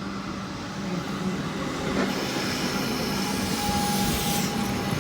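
Comeng electric suburban train running on the track, its steady low hum overlaid by rail noise that builds about two seconds in as it draws closer. A faint steady tone comes in near the end.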